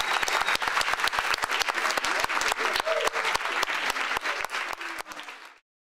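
Audience applauding, with one person's hands clapping loudly and sharply close by. The applause cuts off abruptly near the end.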